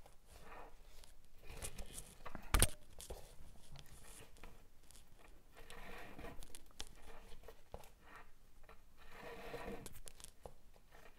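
Waxed polyester cord rustling and rubbing as macramé knots are tied and pulled tight by hand, quiet, with one sharp tap about two and a half seconds in.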